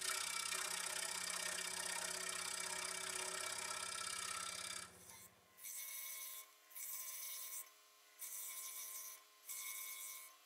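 Electric scroll saw running and cutting angled dovetail cuts in a thin wooden board. For the first five seconds it cuts continuously with a low motor hum. After that, the cutting comes in separate bursts of about a second each as the blade is fed into the wood.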